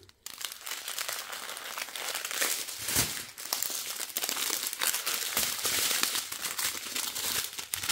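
Strip of joined plastic bags of diamond-painting drills crinkling and rustling as it is handled and flipped over, with a sharper crackle about three seconds in.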